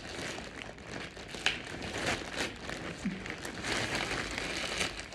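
Parcel packaging crinkling and rustling as it is pulled and torn open by hand, with many small sharp crackles.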